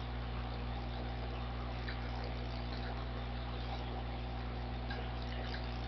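Steady electrical hum and hiss of the recording setup, with a few faint clicks.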